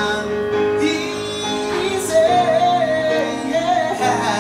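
Live music: a man singing into a microphone over held keyboard chords, amplified through a PA speaker.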